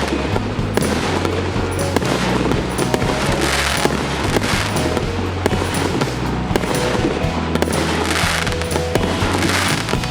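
A 100-shot, 1.2-inch firework cake firing a quick, continuous series of shots and bursts, mixed with background music that has a steady bass line.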